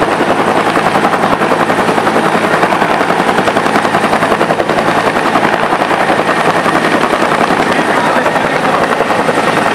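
Two-bladed Bell Huey-family military helicopter flying low overhead, its main rotor beating with a rapid, steady chop.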